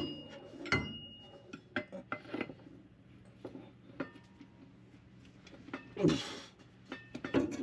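Scattered metallic clinks and taps as a replacement driveshaft for a 2006 Kia Sorento is handled and pushed into place under the car. One clink about 0.7 s in rings briefly. There is a short rush of noise about six seconds in and a few more clicks near the end.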